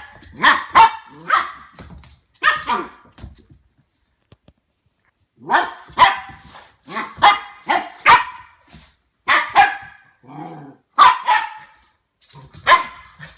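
A ten-week-old Goldendoodle puppy barking repeatedly, in short sharp barks with a pause of about two seconds after the first few. The puppy is barking warily at a new plastic ball that he is unsure of.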